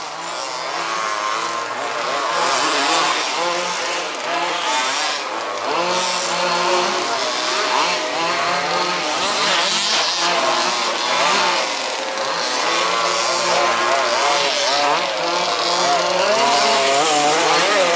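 Several 1/5th scale two-stroke petrol RC buggies racing together, their small engines revving up and down in overlapping, constantly changing whines.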